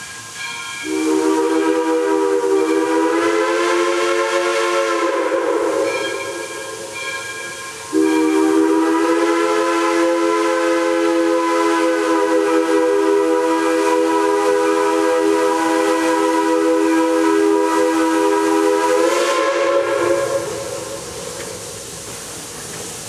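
Chime steam whistle of JS-class 2-8-2 steam locomotive No. 8419 blowing for a grade crossing. A blast of about four seconds begins about a second in, its pitch rising slightly. After a short gap comes a long blast of about eleven seconds, a chord of several notes, and then the locomotive's steam hiss.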